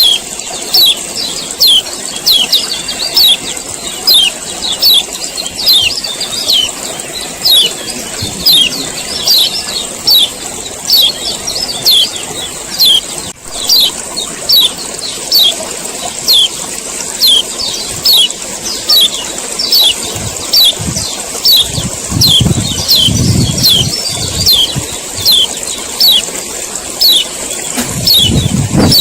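Male kecial kuning (white-eye) giving its repeated 'ciak ciak' call: short, sharply falling high chirps, about one to two a second, over a steady high hiss. A low rumble comes in briefly past the two-thirds mark.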